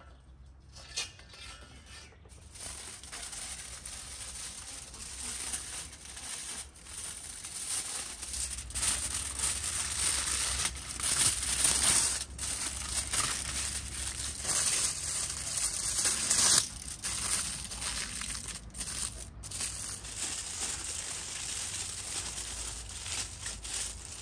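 Aluminium foil crinkling and rustling as it is pulled off the roll, torn and wrapped around wooden sticks, with a single knock about a second in.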